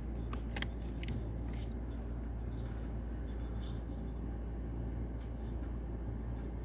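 A few light, sharp clicks of a laptop's memory module and small parts being handled, bunched in the first second and a half, with a few fainter ticks later, over a steady low hum.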